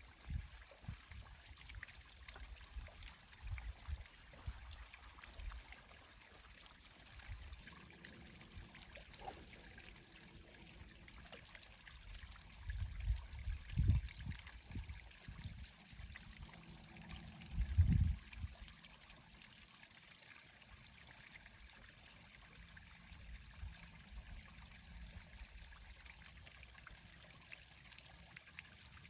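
Water trickling and lapping at close range, with a few dull low bumps, the strongest a little under halfway through and another a few seconds later.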